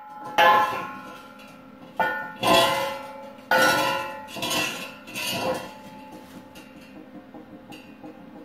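Welded steel plate and flat-bar brackets clanging and ringing as the piece is turned over and set down on a concrete floor, with a string of separate metal knocks through the first six seconds.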